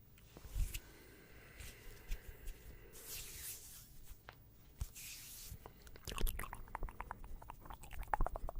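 Close-miked ASMR trigger sounds: two soft scratchy swishes, then a rapid run of small wet clicks from about six seconds in.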